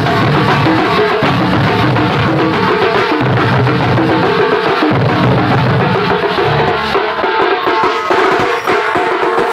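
Loud music led by drumming, with dense steady percussion and held pitched instrument notes over it.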